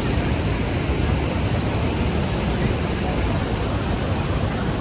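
Waterfall rushing: a steady, dense hiss of falling water with a heavy low rumble beneath it.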